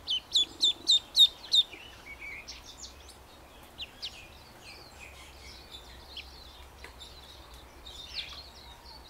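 A duckling peeping: a quick run of six loud, falling peeps, about four a second, in the first two seconds, then scattered fainter chirps.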